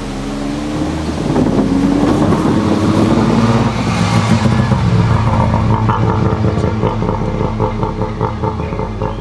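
A car engine accelerating, its pitch rising over the first few seconds, then running on more steadily and a little quieter.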